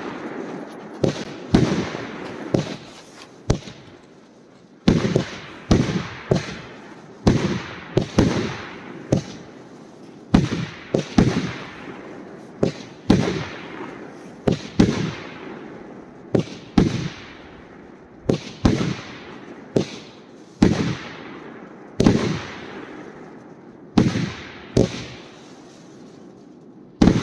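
A 30 mm consumer fireworks cake, Funke Blue Blood F3, firing its shots in a string of sharp, loud bangs, about one to two a second, each trailing off. There is a brief lull about four seconds in.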